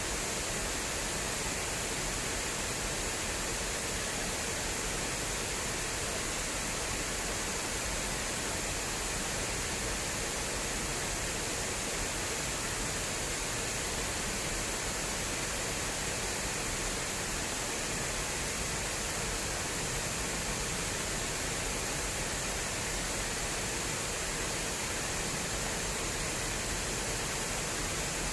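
Fast-flowing water rushing steadily along an irrigation channel, an even, unchanging rush.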